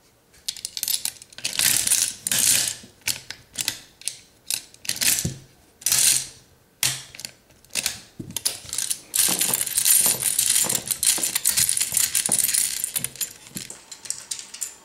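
Crank handle of a red tabletop gumball machine filled with jelly beans being turned, its mechanism ratcheting in several bursts of quick clicks that are densest near the end.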